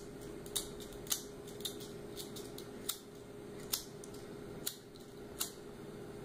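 Pocket lighter flicked over and over, about nine sharp clicks roughly half a second to a second apart, as it fails to light and a flame catches only near the end. A faint steady hum runs underneath.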